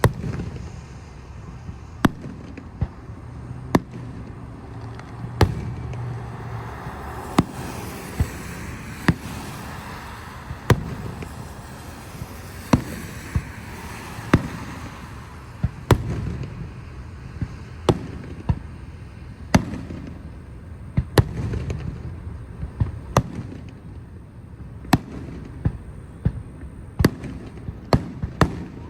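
Fireworks going off in a quick string, sharp bangs about once a second at irregular spacing, each a short crack over a steady background rumble.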